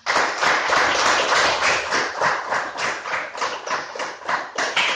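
A small group of people applauding, a dense run of sharp hand claps that starts suddenly and keeps up at several claps a second.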